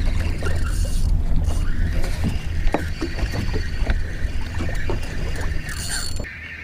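Fishing reel's drag buzzing steadily as a hooked bonita strips line, over a low wind rumble with scattered knocks. The sound cuts off suddenly near the end.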